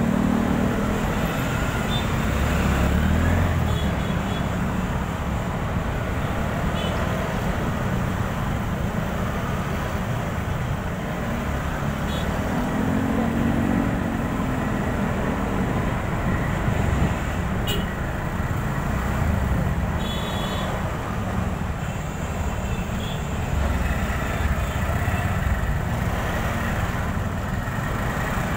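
Motorcycle ride through city traffic: a steady rush of wind, engine and road noise, with other vehicles passing.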